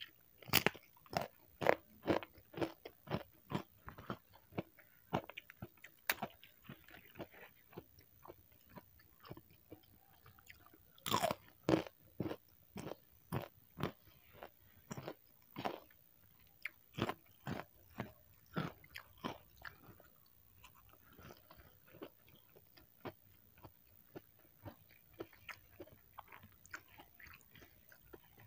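Close-up crunchy chewing: a person biting into a crispy peyek (fried rice-flour cracker) and eating with rapid sharp crunches at a steady chewing pace. The loudest crunches come about eleven seconds in.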